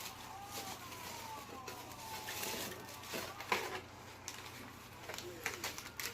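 Packaging being handled as a subscription box is unpacked: scattered rustles, crinkles and sharp clicks, busiest about three and a half seconds in and again near the end. A faint thin tone slides slowly downward through the first few seconds.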